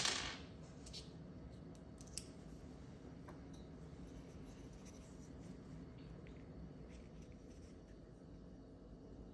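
Small plastic and metal camera parts being handled on a desk: a sharp click at the start and a light tap about two seconds in, then quiet handling over low room tone.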